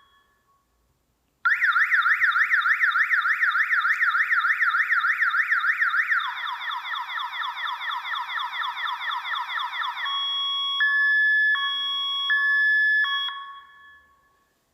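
Electronic alarm siren cycling through its tones. It starts about a second and a half in with a fast up-and-down warble, switches to rapid repeated falling sweeps, then to a two-tone hi-lo alternation that fades out near the end.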